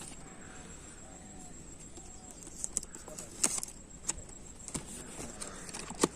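Clicks and taps of a GoPro Hero 9 box being handled and opened, a few sharp snaps among them, the loudest about three and a half seconds in and just before the end.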